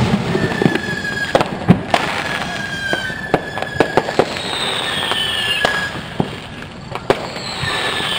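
Many fireworks going off across the area: irregular bangs and pops, a loud bang right at the start and another just under two seconds in. Several whistles run through it, some falling in pitch.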